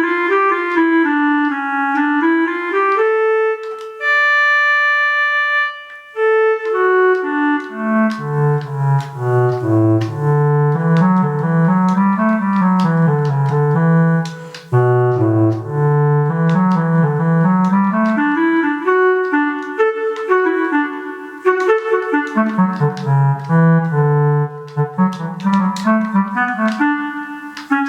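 Travel Sax 2 digital saxophone playing its clarinet sound: a melody of flowing runs of notes, moving up and down through the low register.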